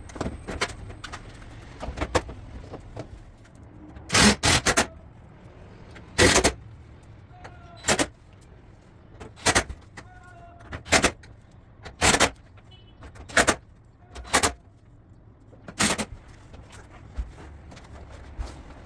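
Tool work on a drum washing machine's metal parts during disassembly: about a dozen short, sharp bursts, one every second or so, with three in quick succession near the start.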